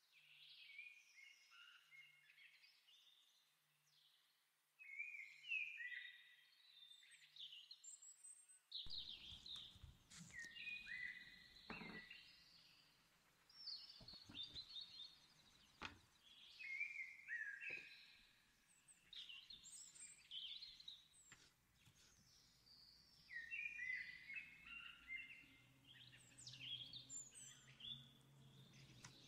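Small songbird chirping and twittering in quick runs of high, gliding notes, faint throughout, with a few soft taps in the middle.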